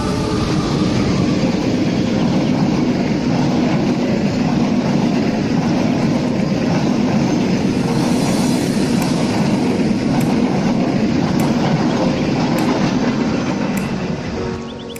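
A diesel-hauled passenger train passing close at speed: the steady rumble and clatter of its wheels on the rails. It dies away near the end as the last car moves off.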